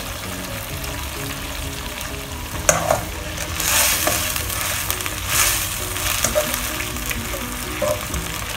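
Minced pork and snow peas simmering in a bubbling sauce in a stone-coated nonstick wok, with a steady hiss. From about three seconds in, a spatula stirs the mixture in several louder scraping sweeps against the pan.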